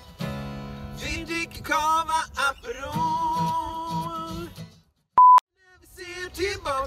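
Two acoustic guitars strummed while a man sings. Near the end the music stops dead, a single short, loud electronic beep sounds in the silence, and then strumming and singing start again.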